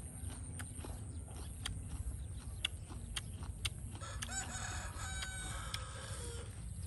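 A rooster crowing once: one long call starting about four seconds in and falling in pitch at its end. Scattered light clicks sound throughout.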